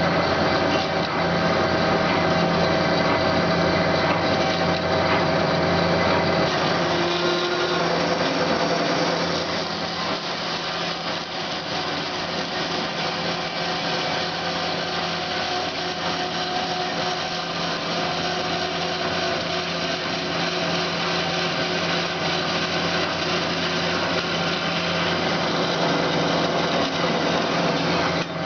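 DoAll C916SA 9" x 16" automatic horizontal bandsaw running with a steady mechanical hum. The sound changes slightly and gets a little quieter about eight seconds in.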